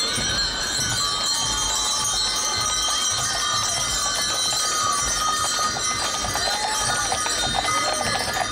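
Bells ringing and jingling steadily as a team of harnessed draught horses passes, over a busy outdoor crowd background.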